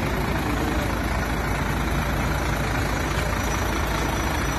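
Diesel engine of an Iveco Astra heavy truck idling, a steady low rumble.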